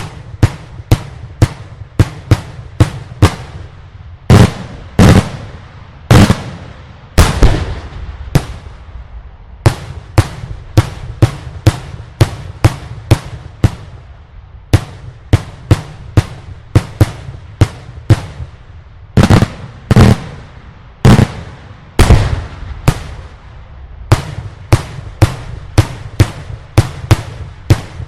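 Daylight fireworks display: a steady run of loud shell bursts and reports, two or three sharp bangs a second, with heavier clusters of louder, echoing booms about five seconds in and again near twenty seconds.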